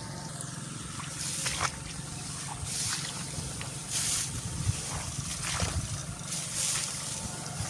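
Tall wet grass swishing against legs and body as people wade through a flooded field, one swish about every second, over a steady low buzz.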